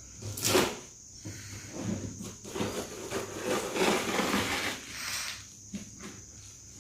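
Cut plastic wrapping being pulled and handled on a cardboard box: irregular rustling and rubbing, with a sharp rustle about half a second in and a few light clicks near the end.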